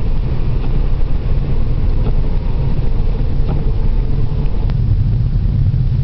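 Steady low drone inside the cabin of a 1993 Vectra 2.5 V6 driving on a snow-covered road: the V6 engine running at an even pace under tyre and road noise.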